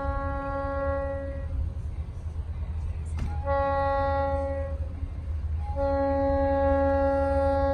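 Horn of an approaching Florida East Coast Railway locomotive sounding a series of steady blasts: the end of one, a shorter blast, then a long one. A steady low rumble runs underneath.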